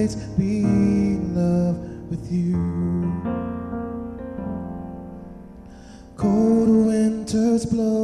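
Slow ballad with keyboard (electric piano) chords under a gliding lead melody line. The lead drops out around the middle, leaving held keyboard notes fading away, and the full band comes back in about six seconds in.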